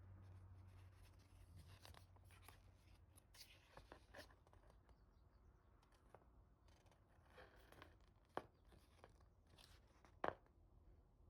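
Near silence: faint rustling and small handling clicks, with two sharper clicks near the end.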